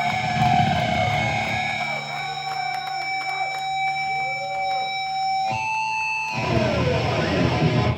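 Live electric guitar through an amplifier, playing long held notes that ring on steadily, over a low amp hum. The held notes change pitch twice near the end.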